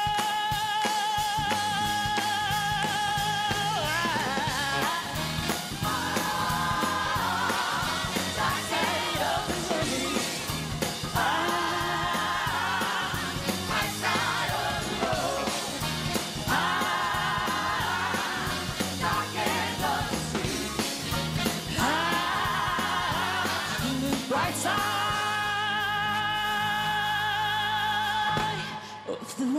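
Live band with a woman lead singer holding long notes with vibrato, answered by short repeated sung phrases over a steady bass and drum beat. The music drops away right at the end.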